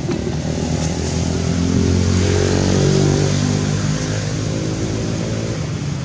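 A motor vehicle's engine running close by, a steady low hum that grows louder about halfway through and then fades again.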